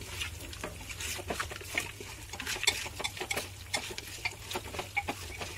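Raw goat meat being mixed by hand with spice paste and oil inside a metal pressure cooker: an irregular run of short, soft clicks and rustles as the pieces are turned and squeezed.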